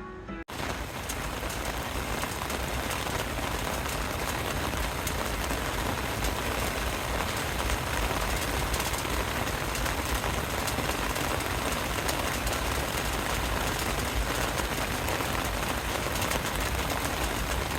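Steady rain falling, an even dense hiss with faint fine patter that keeps the same level throughout.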